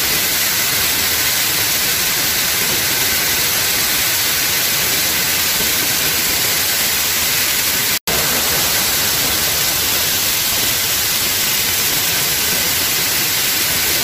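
Steady rushing of a fast stream cascading over stepped rock, a loud even hiss of water. It cuts out for an instant about eight seconds in.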